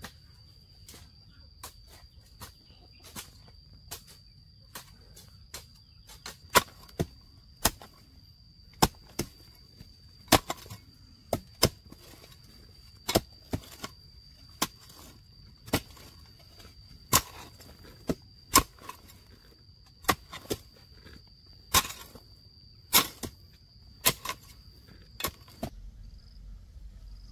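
Sharp, hard knocks struck at an uneven pace of roughly one a second, some much louder than others. A steady high insect drone runs underneath and stops near the end.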